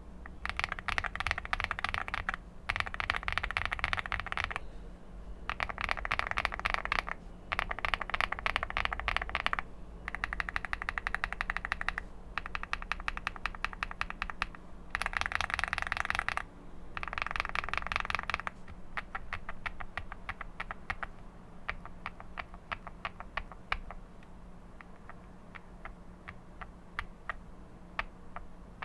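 Mechanical keyboard with lubed AKKO Snow Blue Grey switches being typed on: rapid runs of keystrokes in bursts of about two seconds with short pauses, then slower, separate keystrokes for the last ten seconds or so. A steady low hum runs underneath.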